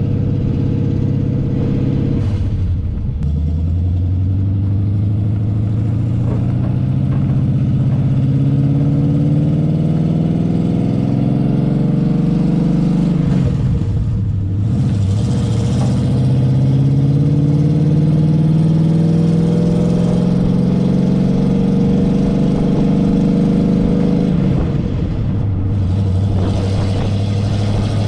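Chevy 350 small-block V8 pulling hard under the load of a trailered skid steer. Its pitch climbs steadily and drops back at three gear shifts: early on, about halfway and near the end. The exhaust runs through glasspack mufflers.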